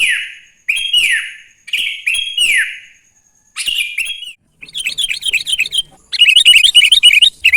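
Sooty-headed bulbul singing: short phrases of clear whistled notes that drop in pitch, about one a second, then from about halfway a faster, louder run of chattering notes.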